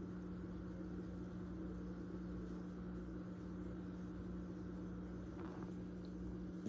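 Steady low hum of aquarium equipment running, with a faint hiss over it.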